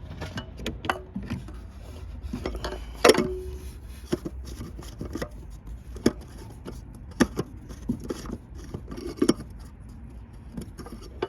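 Scattered clicks, knocks and light clinks of an oil filter and its housing being handled and refitted by hand on a Range Rover Evoque, with one sharper ringing clink about three seconds in.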